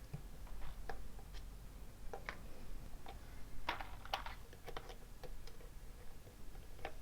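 Keycaps being pressed onto the switch stems of a mechanical keyboard: scattered, irregular light plastic clicks and taps, singly and in small clusters.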